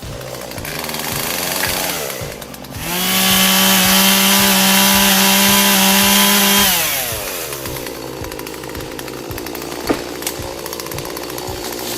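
Two-stroke chainsaw revving up, then held at full throttle for about four seconds before the trigger is released and the pitch falls back toward idle. Faint background music with a steady beat underneath.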